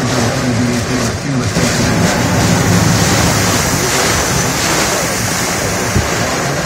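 Wind-driven heavy rain of a thunderstorm beating on a car, a loud steady rush with gusts of wind, heard from inside the car.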